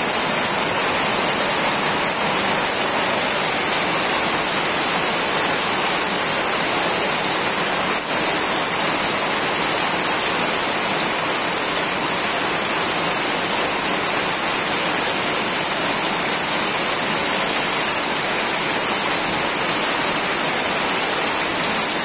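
Heavy rain pouring steadily onto flooded ground, with runoff streaming off a roof edge, as an even, unbroken hiss.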